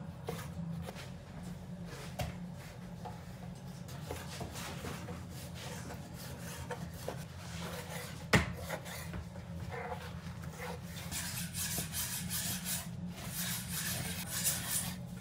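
Kitchen knife cutting raw meat and fat on a wooden cutting board: the blade slices through the meat and taps and scrapes the board in quick irregular strokes, with one sharper knock about eight seconds in.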